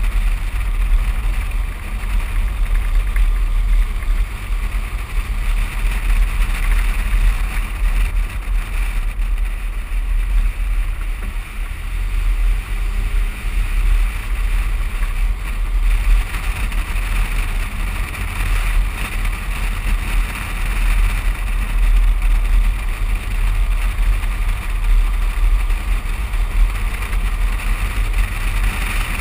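Wind rushing over a microphone mounted on the outside of a moving vehicle, with a steady low rumble of road and tyre noise.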